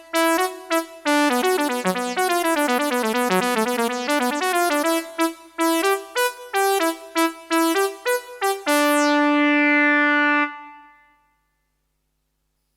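Roland Fantom-X6 synthesizer workstation playing a piano-like keyboard patch. A quick run of notes sweeps down and back up, then separate notes follow. It ends on a held chord that stops about ten seconds in and dies away.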